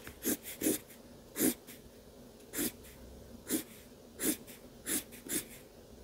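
Felt-tip marker drawn across drawing-pad paper in quick short strokes, about eight of them at irregular intervals, sketching twig lines.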